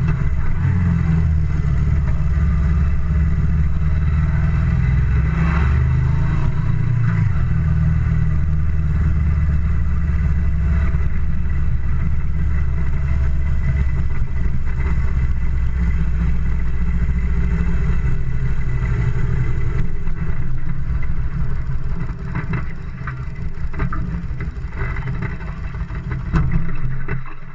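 Moto Guzzi Le Mans II's 844 cc V-twin engine running steadily with the bike under way. About twenty seconds in it eases off, and the sound drops to a lower, uneven level as the bike slows into a village street.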